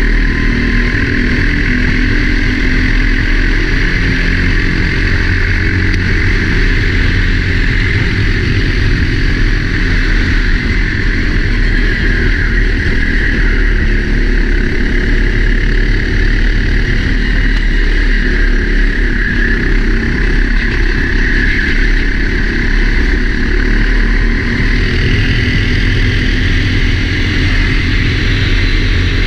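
Four-stroke Sodi kart engine running hard under racing, heard onboard, its pitch rising and falling as the revs change.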